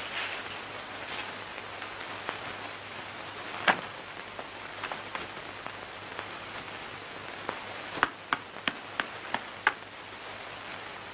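Hands slapping and patting flat rounds of bread dough: one sharp slap about a third of the way in, then a quick run of six slaps at about three a second near the end. A steady hiss runs underneath.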